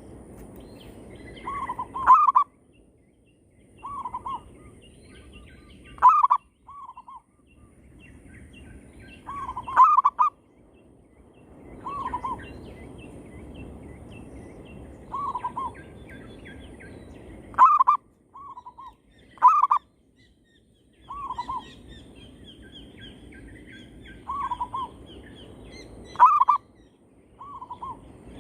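Zebra doves (perkutut) cooing: short, rounded notes grouped in phrases that repeat every few seconds, calling back and forth, with faint chirps of smaller birds between them.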